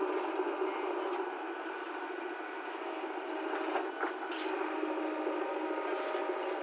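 Backhoe loader's diesel engine running steadily, with a few short metallic clanks.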